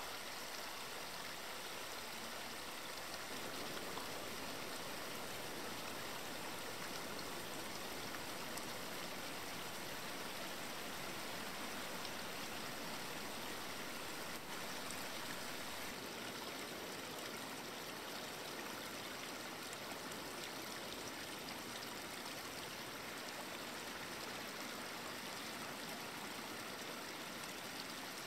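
Steady rush of running water, like a small stream, unchanging throughout.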